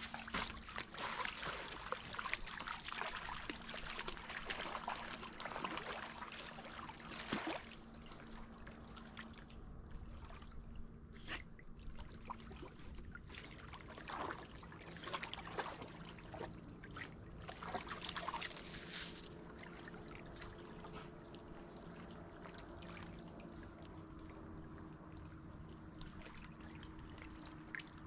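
Shallow lake water splashing and trickling around a wading Shar Pei and the shore rocks. The splashing is busiest over the first several seconds and thins to a few scattered splashes later.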